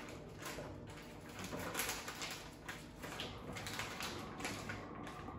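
Plastic bacon package crinkling and rustling in short, irregular bursts as strips of raw bacon are pulled out of it and laid on a baking sheet. The bursts stop shortly before the end.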